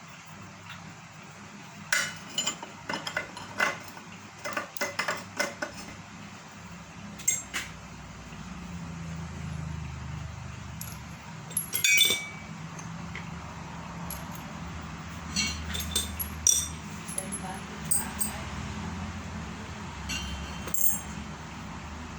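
Loose metal parts of a meat grinder, its cutting blades and screen plate, clinking and clicking against each other and the housing as they are handled and fitted, in irregular sharp knocks. A low steady hum comes up about eight seconds in.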